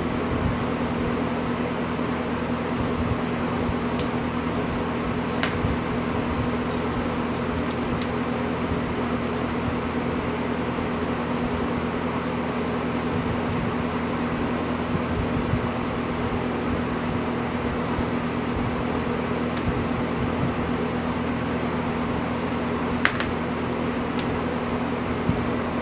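Steady mechanical hum with a constant low drone, as from a fan or similar motor running. A few small sharp clicks sound over it as an Allen key works the bolts on the engine cover, the loudest near the end.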